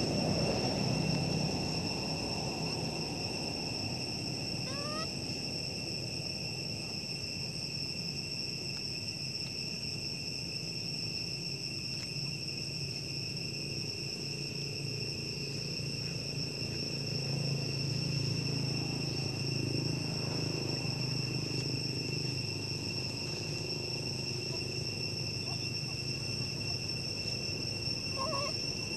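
Steady insect chorus: a continuous, even high-pitched drone, with a low hum underneath and a couple of brief rising chirps.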